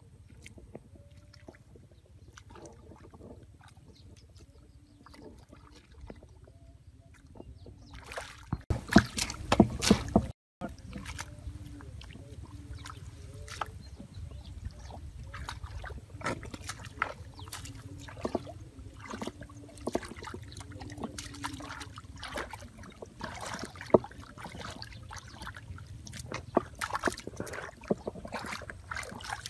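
Hands squelching and splashing in shallow muddy rice-field water while groping through the mud for fish, with irregular wet slaps and sloshes over a steady low rumble. The splashing is louder for a couple of seconds about eight seconds in, and the sound drops out briefly just after.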